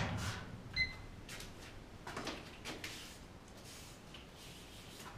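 Workshop handling noises from tools and a plastic epoxy bucket: a sharp knock at the start, a short metallic ping about a second in, then scattered light clatters and scrapes.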